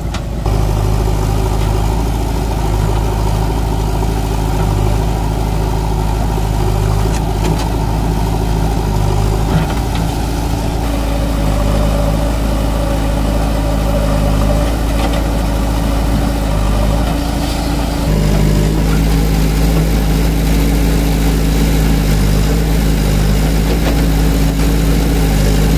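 Diesel engines of a JCB 3DX backhoe loader and a Swaraj 744XT tractor, the tractor's a three-cylinder diesel, running steadily at idle. About two-thirds of the way through, the drone shifts abruptly to a different, steadier pitch.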